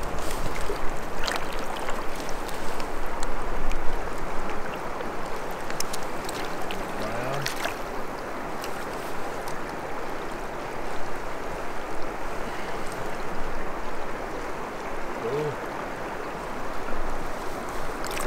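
Steady rush of a shallow river current around wading legs, with a few sharp splashes in the first several seconds as a trout thrashes in a landing net.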